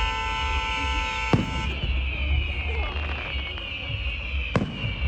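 Fireworks going off: two sharp bangs about three seconds apart over a constant low rumble and hiss. A steady held tone, like a horn or alarm, sounds at first and stops before the first second and a half is over.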